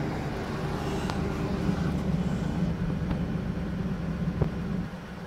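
Ford Expedition's V8 engine idling steadily, heard from inside the cab, now running again on its repaired fuel pump relay. A few faint clicks are heard.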